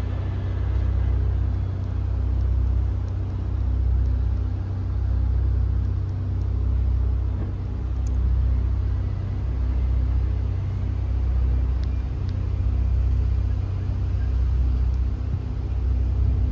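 A road vehicle's engine idling: a steady low rumble that swells and eases about every two seconds.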